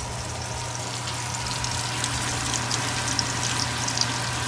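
Battered onion deep frying in hot oil: a steady sizzle full of small crackling pops, over a steady low hum.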